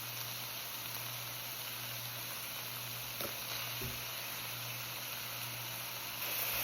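Shredded cabbage, chicken and sauce sizzling steadily in an oiled cast iron skillet, with a couple of faint knocks about three and four seconds in.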